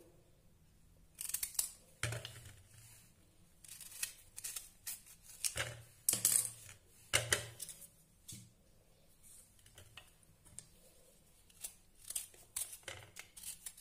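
A kitchen knife and then a hand vegetable peeler cutting and scraping the skin off raw turnips, in short, irregular strokes and clicks.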